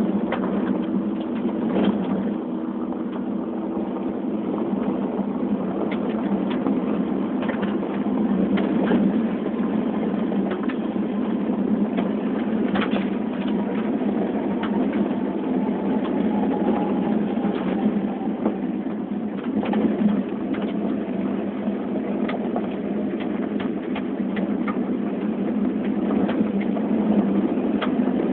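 Hyundai Accent driving on a rough gravel dirt road, heard from inside the cabin: a steady engine and tyre drone, broken by frequent sharp clicks and knocks from the rough surface.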